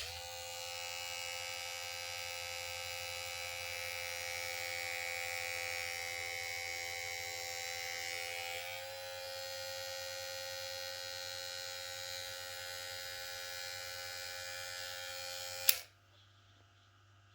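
Cordless electric hair clipper switched on with a click and running with a steady motor whine. Its pitch steps up slightly about halfway through, and it is switched off with a sharp click near the end.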